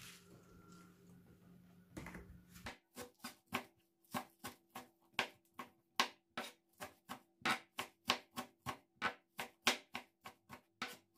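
A knife chopping on a cutting board in quick, even strokes, about three or four a second, starting about three seconds in.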